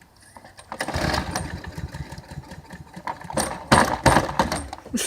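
Lawn mower engine being started, sputtering and catching briefly without settling into a run. It comes in twice: about a second in, and again at about three and a half seconds.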